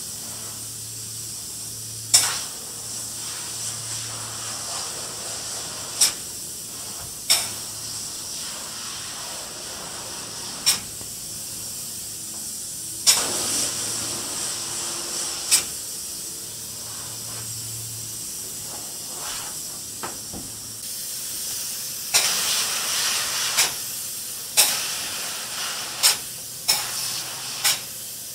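Spray foam insulation rig hissing, louder in spells of spraying about halfway through and again near the end, over a steady high hiss, with about a dozen sharp clicks scattered through.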